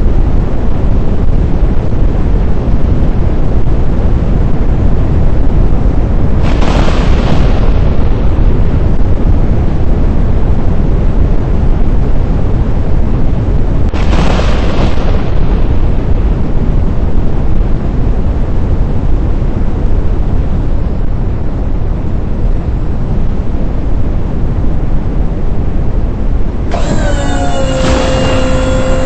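Strong wind buffeting the microphone in a loud, steady rumble, with two brief hissing bursts about seven and fourteen seconds in. Near the end a pitched, wavering tone sounds for about two seconds.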